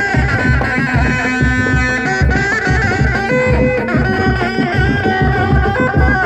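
Sundanese reak ensemble playing: dog-dog frame drums beating a steady rhythm of about three strokes a second, with a tarompet (shawm) melody of held, bending notes over it.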